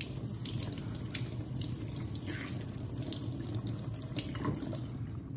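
Kitchen faucet running in a steady stream onto a watermelon that is being rinsed and turned by hand over a stainless steel sink, with water splashing off the rind in small irregular spatters.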